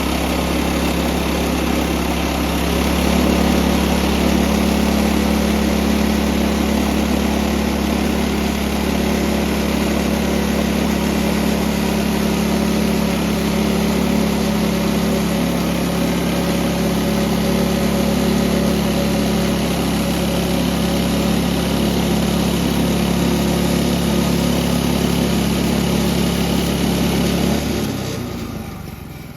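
Small gasoline engine of a portable bandsaw mill running steadily, a little louder from about three seconds in, then dropping away near the end.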